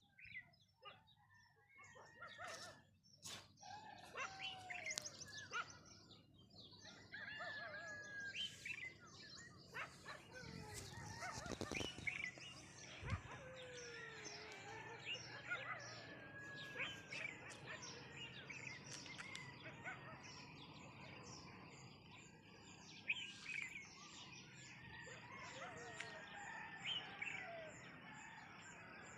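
A morning chorus of many birds chirping and calling over one another, with short whistled notes and trills. Near the end one bird repeats a high call several times a second.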